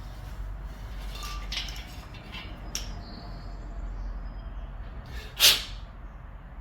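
Light clinks and knocks of small metal parts being handled, with a faint ringing at about three seconds. About five and a half seconds in comes one short, loud hiss.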